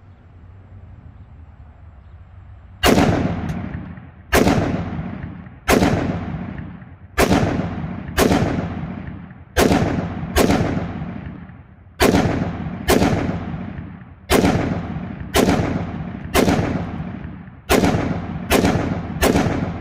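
Ruger SFAR .308 semi-automatic rifle firing fifteen shots at a steady pace, about one a second, emptying its magazine; each shot is loud and followed by a long echoing tail. The first shot comes about three seconds in.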